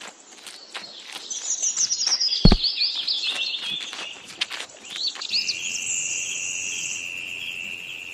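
Birds chirping and trilling, with a steady high insect-like buzz coming in about five seconds in. Short sharp taps run throughout, with one loud knock about two and a half seconds in.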